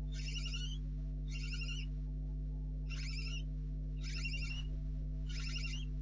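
Barn owl owlets giving repeated hissing food-begging calls, the "snoring" call, five short calls about a second apart, over a steady low electrical hum.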